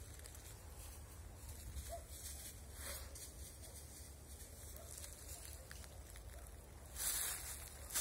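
Quiet outdoor ambience with a steady low rumble, a faint rustle about three seconds in and a louder burst of rustling for about a second near the end.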